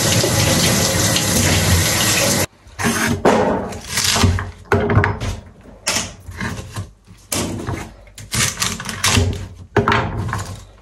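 Kitchen tap running steadily into a sink, cut off about two and a half seconds in. It is followed by irregular splashing and clattering as things are rinsed and handled in the sink.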